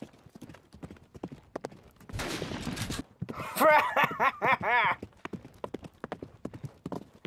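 Sound-effect hoofbeats of a galloping horse go on throughout, broken about two seconds in by a burst of gunfire lasting nearly a second. A man's cackling laugh follows right after.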